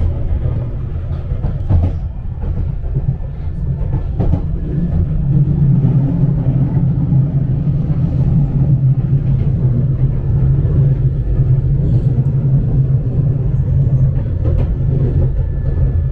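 Interior running noise of a Bakerloo line 1972 Stock tube train: a steady low rumble from the wheels and traction, with a few sharp clicks as the wheels cross rail joints.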